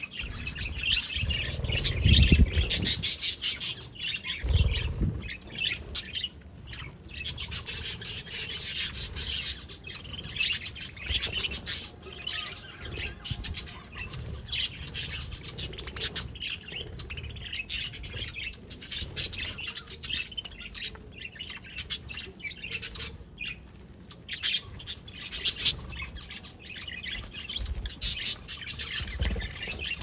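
A flock of budgerigars chirping and chattering continuously, many birds at once. A few low thumps or rumbles come about two and four seconds in and again near the end.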